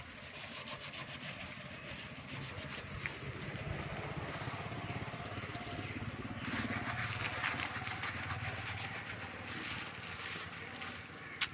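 Continuous rubbing and scraping of a glass tube being worked into an oiled rubber seal on a solar water heater tank, louder for a few seconds past the middle.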